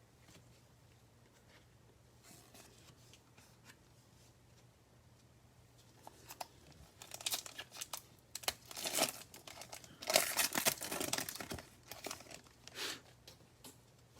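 A trading card pack wrapper being torn open and crinkled: after a quiet stretch, short bursts of tearing and crackling from about six seconds in until near the end.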